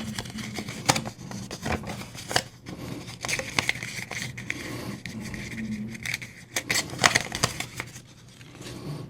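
Small parts and tools being handled on a workbench: scattered sharp clicks and taps with short scraping sounds, over a faint steady hum.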